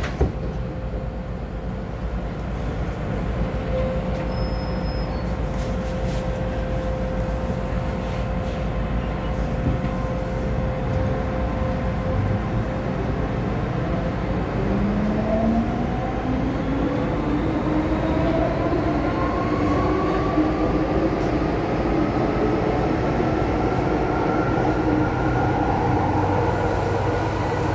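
Metro train's electric traction motors heard from inside the car as it starts from a station and accelerates: a steady hum at first, then from about halfway a whine of several tones rising steadily in pitch as the train gathers speed, over a constant low rumble of wheels on track.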